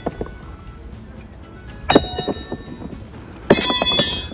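Thrown metal horseshoes landing in a wooden horseshoe-pitching box with a metal stake, giving ringing metallic clanks: one about two seconds in, then a quick run of clanks about a second and a half later.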